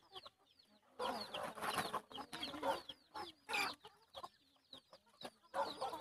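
Flock of black-meat chickens feeding, giving many short high clucks and chirps. Bursts of scratchy rustling come as they peck and scratch at paper spread on the ground, loudest about a second in and again near the end.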